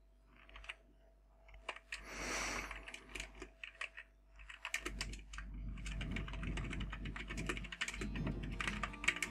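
Typing on a computer keyboard: a few scattered keystrokes at first, then fast continuous typing from about five seconds in. There is a short hiss about two seconds in.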